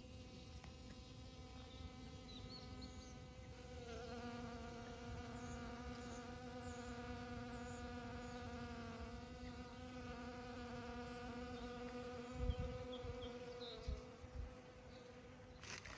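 Honeybee buzzing as it forages among snowdrop flowers: a steady hum with several overtones, louder from about four seconds in, dipping slightly in pitch a couple of times, and stopping just before the end.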